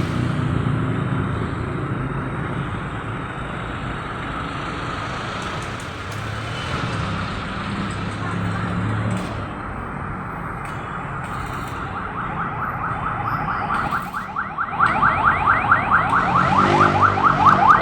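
A steady running noise with a low hum, then, about 15 s in, a car alarm starts sounding: loud, rapid repeating warbling chirps.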